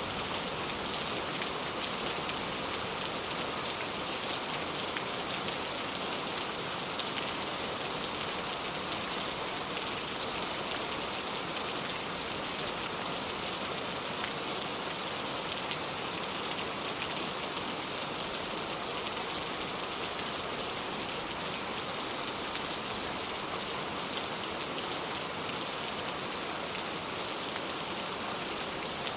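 Steady rain falling, a continuous hiss of drops with many small individual raindrop ticks on surfaces.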